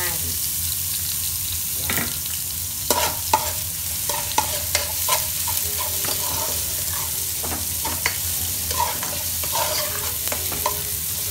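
Chopped onion and garlic sizzling in hot oil in a pan, with a metal ladle stirring and repeatedly clicking and scraping against the pan. The onion has just gone in on top of the browned garlic, the start of a sauté.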